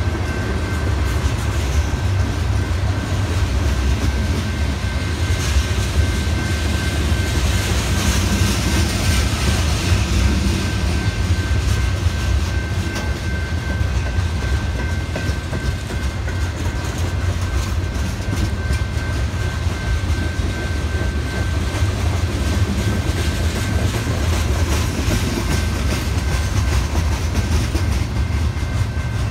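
Freight cars of a passing train rolling by close up: tank cars, covered hoppers and flatcars make a steady rumble and clickety-clack of wheels on rail, with a thin steady high whine above it.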